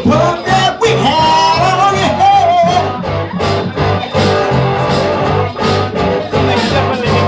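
A live band playing: a man singing into a microphone over electric guitars and a bass guitar, with a steady, even beat.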